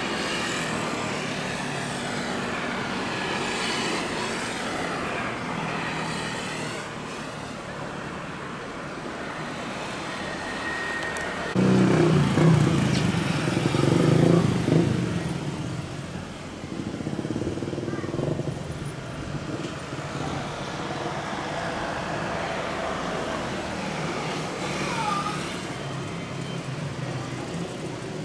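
Jet airliner engines heard from a distance: a steady rush with slowly sweeping tones. About twelve seconds in, a louder low rumble starts abruptly, swells twice over a few seconds, then settles back to a steady rush.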